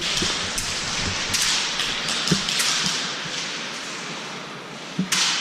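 Steady rushing hiss on a GoPro-style action camera, with a few scattered sharp snaps of airsoft fire, the strongest a little before the end.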